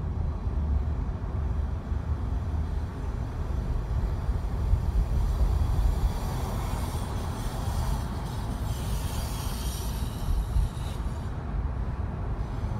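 A car driving along a city street: a steady low rumble of tyres and engine. From about five seconds in until about eleven seconds, a thin, high whine of several tones sits over it.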